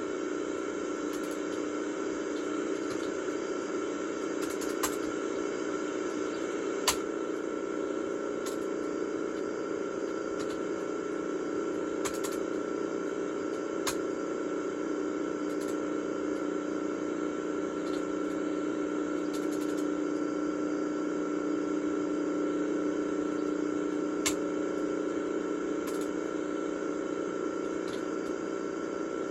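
Audio track of a VHS tape playing back a steady hum and hiss with a faint high tone through it. Sharp clicks come every few seconds.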